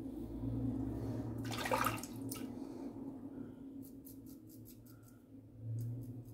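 Edwin Jagger Kelvin double-edge safety razor scraping moustache stubble on an against-the-grain pass: a quick run of faint short scratches, about four a second, in the second half. A short rushing noise comes about a second and a half in, over a steady low hum.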